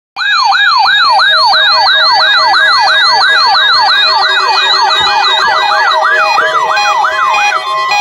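Electronic alert siren of a weather alert radio sounding for an incoming emergency alert: a rapid rising whoop repeated about four times a second, slowing over its last couple of seconds and stopping just before the end.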